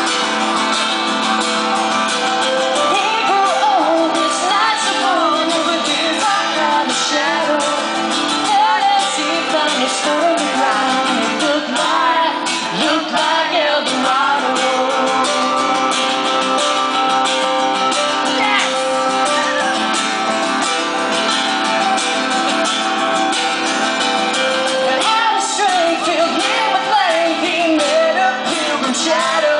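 Live acoustic music: several acoustic guitars strummed together under a man's singing voice, in a country-twang style.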